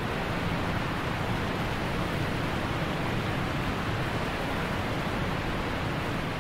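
A steady, even rushing noise, without any distinct strokes or tones.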